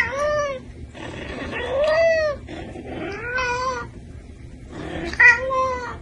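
Domestic tabby cat meowing loudly and repeatedly, four long calls about a second and a half apart, each rising then falling in pitch, the second the loudest. The cat is calling at a sleeping person to wake them.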